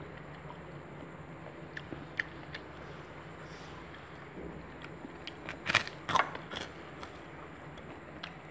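A person eating close to the microphone: small chewing and crunching clicks now and then, with a cluster of louder, sharp crunches or clicks about six seconds in. A steady low hum runs underneath.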